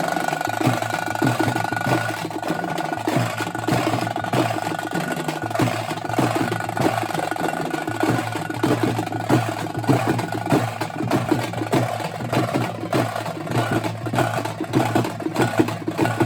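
Karnataka folk drumming: a group of drums beaten with fast, dense strokes without a break, over a steady held tone.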